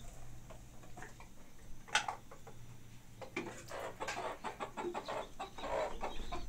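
Chickens clucking, a run of short uneven clucks in the second half, with a single sharp knock about two seconds in.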